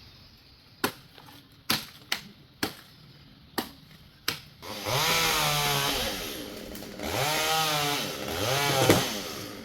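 Several sharp knocks, then a chainsaw engine revved up and let back down three times.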